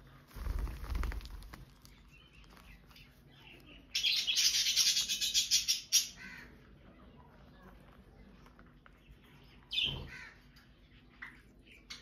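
Indian ringneck parakeets calling: a loud, harsh, rapidly pulsing screech lasting about two seconds in the middle, then a short falling squawk near the end. A low rumble sounds briefly near the start.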